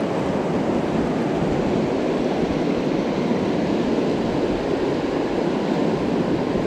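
Fast river water rushing over a rocky rapid: a steady, even rush of whitewater.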